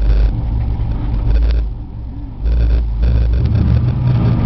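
Off-road truck's engine heard from inside the cab, running hard in surges while driving through mud, with short bursts of rushing noise. It eases off briefly a little under two seconds in, then picks up again.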